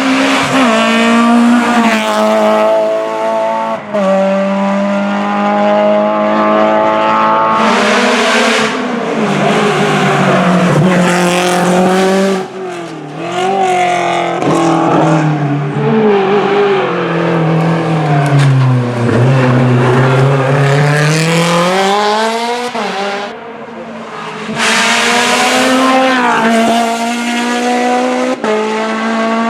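Rally car engines at high revs, stepping through gear changes, then falling in pitch as a car brakes and slows through a corner and climbing again as it accelerates away, with rushes of tyre noise.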